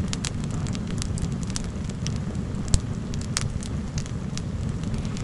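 Wood campfire crackling, with sharp irregular pops over a steady low rumble and one louder pop a little under three seconds in.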